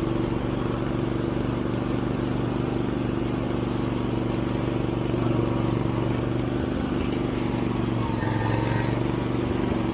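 Riding lawn mower engine running steadily under way, heard close up from just above the engine, with an even pitch and no revving.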